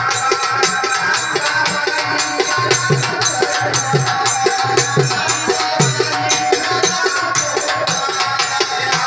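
Live folk devotional music: hand drums beat a quick, steady rhythm of about four strokes a second under a sustained melody.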